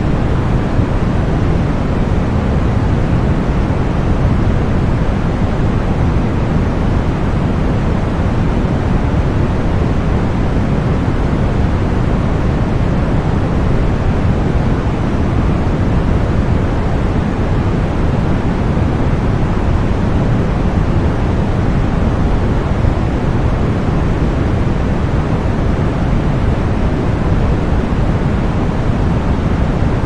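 Steady synthetic masking noise played for tinnitus relief: an unbroken, even rush with no events or changes, heavier in the low end than in the treble.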